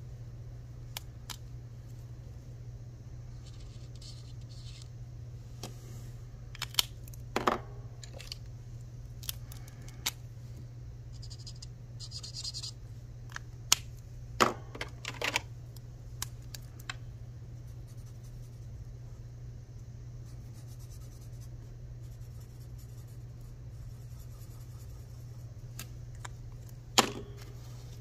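Small handling sounds at a desk: scattered short taps and clicks and brief rustles of paper and banknotes, the sharpest near the end, over a steady low hum.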